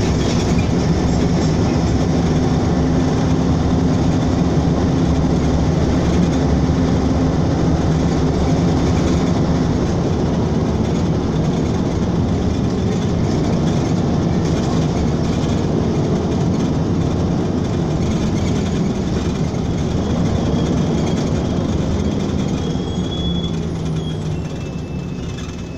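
Interior noise of a LiAZ-5292.22 low-floor city bus under way: a steady engine drone with road and body noise, getting quieter near the end.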